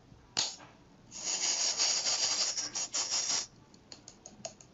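A short scuff, then about two seconds of scratchy rubbing noise close to the microphone, followed by a few short clicks.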